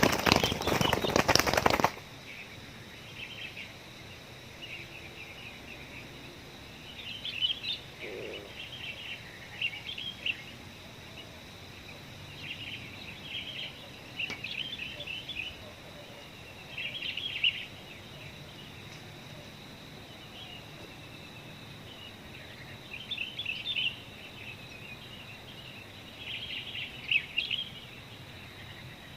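Small birds chirping in short high bursts every few seconds over a faint steady high whine, after a loud rustling noise that cuts off about two seconds in.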